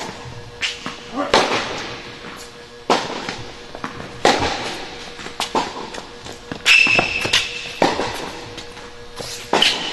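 Tennis ball being hit back and forth in a rally on an indoor hard court: sharp racket pops about every second and a half, echoing in the hall, with a brief high squeak of sneakers on the court surface a little past the middle.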